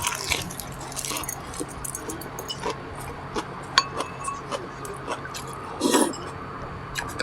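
Close-miked eating sounds: chewing and mouth noises with scattered clicks and clinks of utensils against dishes, and a louder burst of eating noise about six seconds in.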